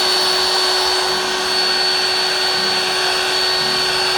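Heat gun running steadily, a rushing blow of air with a constant high whine, softening a 3D-printed plastic part so it can be pressed into shape.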